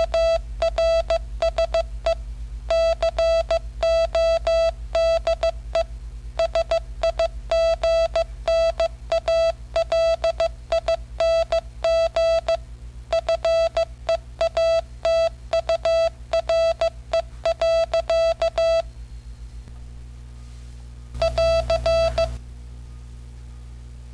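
Morse code keyed out by an M6800 microcomputer at about 13 words per minute: a single steady-pitched tone switched on and off in dots and dashes, stopping about nineteen seconds in. There is one more short burst of the tone near the end, over a steady low hum.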